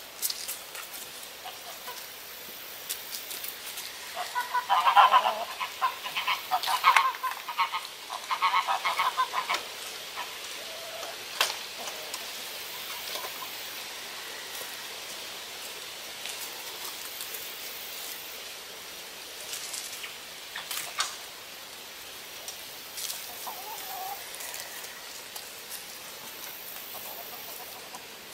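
Backyard chickens squawking in a run of loud, rapid calls for several seconds, then a single quieter call near the end. A few sharp knocks sound in between.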